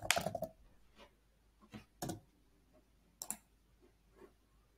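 A quick run of computer keyboard keystrokes, then about five single mouse clicks spaced out over the next few seconds.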